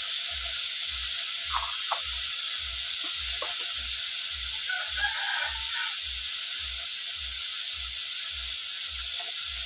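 Beetroot and carrot pieces frying in hot oil in a karahi: a steady sizzling hiss.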